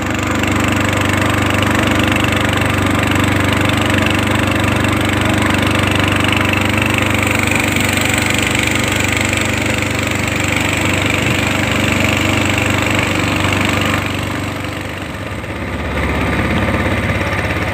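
Small boat's engine running steadily underway, easing off briefly about fourteen seconds in and picking up again.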